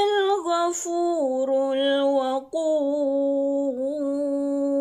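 A woman's voice chanting Quran recitation, drawing out long melodic notes that step down in pitch and then settle on a long, steady low note, with a brief break for breath about halfway through.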